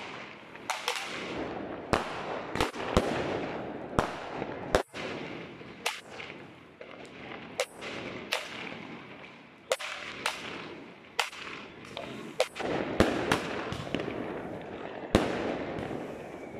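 Argento Exotica consumer firework battery (cake) firing shot after shot: about twenty sharp bangs at irregular intervals of half a second to a second, with a continuous rushing noise of the bursting stars between them.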